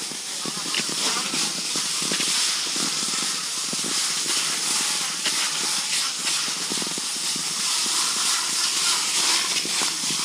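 Cross-country skis sliding over snow: a steady hiss, with irregular soft knocks from strides and pole plants.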